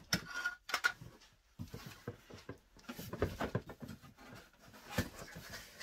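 Handling noise while unpacking a vacuum cleaner: a metal-and-plastic handle tube knocking as it is set down on the hard floor, then cardboard rustling and scattered knocks as hands rummage inside the box.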